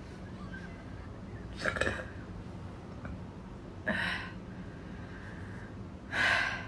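Three short, breathy throat sounds from a woman with a belly full of Sprite, evenly spaced about two seconds apart.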